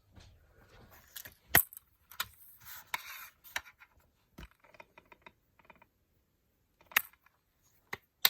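Plastic DVD case being handled and opened: scattered sharp plastic clicks and snaps, with brief rustling and a run of light rattly ticks in between.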